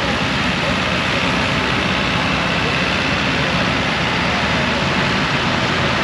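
Vintage tractors running as they pull a trailed forage harvester, which is chopping grass and blowing it into a trailer: a steady, loud mechanical din.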